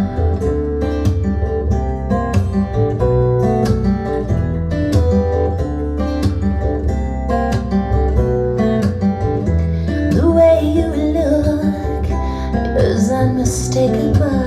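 Acoustic guitar music with a steady bass line, played back through Audio Note AN-J-LX hi-fi loudspeakers driven by a push-pull valve amplifier in a small room. A singing voice comes in briefly near the end.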